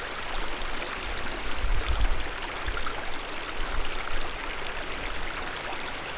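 Steady rushing outdoor noise, with heavier low rumbles swelling about two seconds in.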